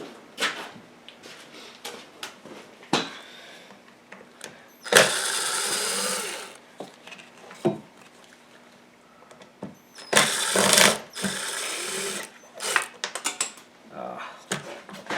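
Hand tools and parts clicking and knocking while an ATV's air cleaner is being worked loose, with two louder noisy bursts of a second or two each, about five seconds in and again about ten seconds in. A faint steady hum runs underneath.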